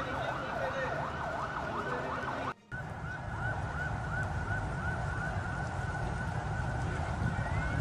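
An electronic siren or alarm wailing in quick up-and-down sweeps. After a brief dropout it becomes a higher, steadier tone that wavers rapidly, over a steady low rumble.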